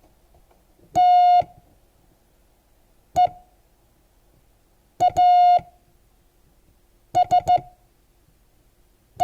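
Morse code sent as a steady pitched beep, keyed dah, dit, dit-dah, dit-dit-dit and a final dit right at the end. That spells the letters T, E, A, S, E, the word "TEASE". Each letter is separated by a long gap of about two seconds.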